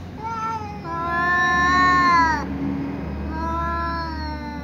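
Two domestic cats, a ginger cat and a tom, meowing at each other in long drawn-out calls. First a short meow, then a loud one that rises and falls in pitch, then another long one that slowly falls.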